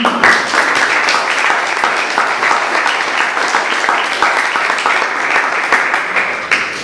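Audience applauding: many hands clapping together, starting sharply and dying away near the end.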